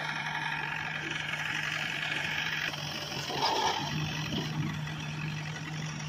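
Escorts backhoe loader's diesel engine running steadily, with a higher steady whine over it that stops about halfway through.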